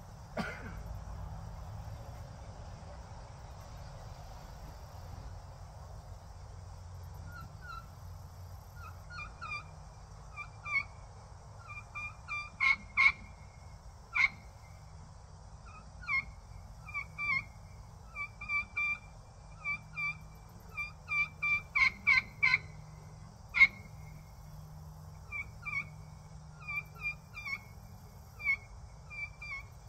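A homemade kee-kee pot call, a friction turkey call worked with a striker, is run in high whistled kee-kee notes broken by short yelps. The notes start about seven seconds in and come in repeated runs, with a few sharp clicks among them. This imitates the kee-kee run of a young turkey.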